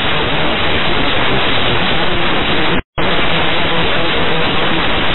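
Loud, steady hiss of static on an air traffic control radio channel between transmissions, cutting out for a split second about three seconds in.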